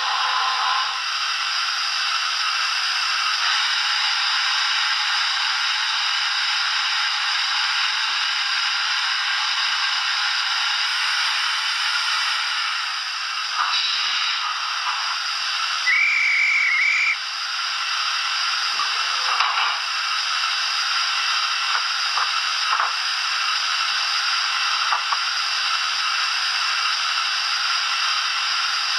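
Youchoos steam sound decoder in a Dapol OO-gauge SECR Wainwright D class model locomotive playing standing-engine sounds through its small onboard speaker: a steady hiss of steam with occasional light clanks and scrapes, and a short high tone a little past halfway.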